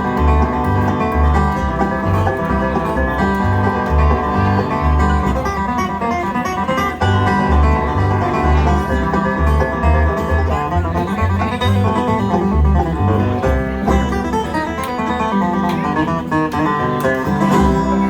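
Live bluegrass band playing an instrumental break with no singing: plucked banjo and acoustic guitar over a steady bass line.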